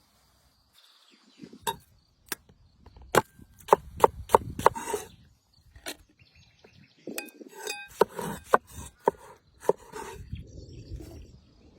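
A knife chopping on wood: a series of sharp, irregular knocks, several in quick succession around the middle.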